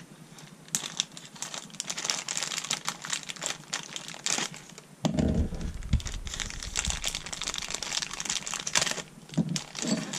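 Thin clear plastic bag crinkling and rustling as fingers open it and pull small rubber and plastic mounts out, with many small clicks. A heavier dull thump and rumble about five seconds in is the loudest moment.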